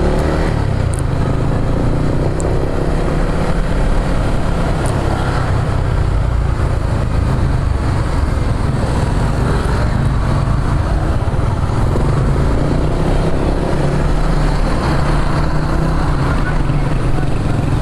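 Motorcycle under way, its engine pitch rising in the first few seconds as it pulls off, with steady wind rushing over the microphone.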